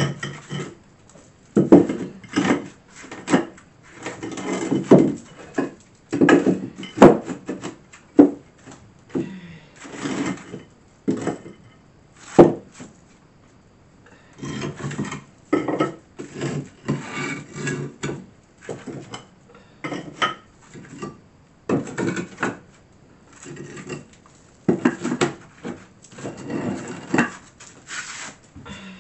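Old French cement tiles being handled from a stack and set down on the floor: irregular clacks of tile against tile and scraping of tile across the subfloor, with a short lull about halfway.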